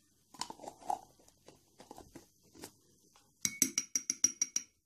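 Metal spoon stirring a gritty salt-and-coconut-oil scrub mixture in a ceramic bowl, scraping and tapping. In the last second or so it clinks rapidly against the bowl, about nine times a second.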